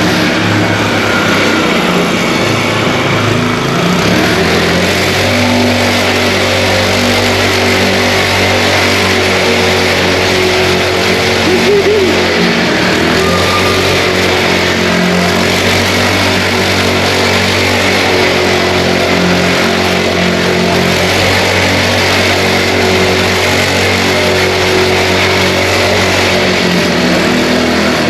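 Mini bike engine running steadily under way, its note holding fairly even with small changes in speed, under a steady rushing hiss.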